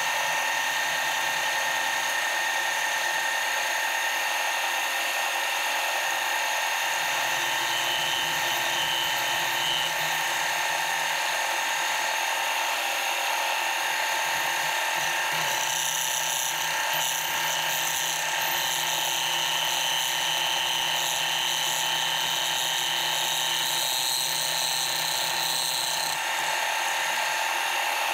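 Milling machine spindle driving a 5/8-inch end mill through a steady cut, milling a flat on the tang of an MT3 taper arbor under flood coolant. It makes an even whine with several steady high tones.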